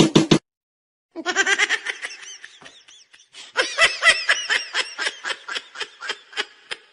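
Laughter sound effect: rapid, rhythmic, high-pitched laughing that breaks off for a moment just under half a second in, then starts again about a second in as quick giggling pulses.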